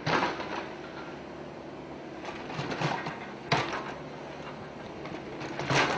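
Steady running of heavy machinery at a crane lifting site, with a sharp knock about three and a half seconds in and a few louder swells of noise.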